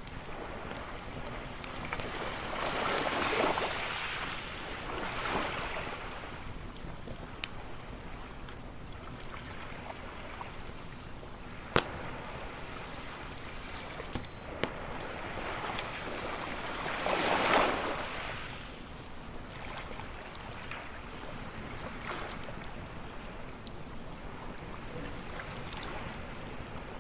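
Campfire crackling with scattered sharp pops, the loudest near the middle, over waves washing onto a beach. Two bigger waves swell and fade, one a few seconds in and one about two-thirds of the way through.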